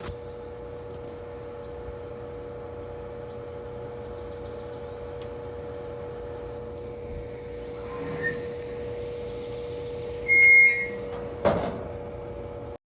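A steady machine hum with a constant mid-pitched tone, a loud short high beep about ten seconds in, then a single knock before the sound cuts off.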